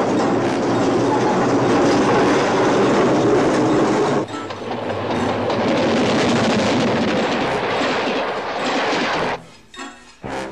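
Runaway railroad cars rolling fast along the track: a loud, steady rumble and clatter of steel wheels on rails, with a brief break about four seconds in. Near the end the clatter drops away, leaving a few scattered knocks.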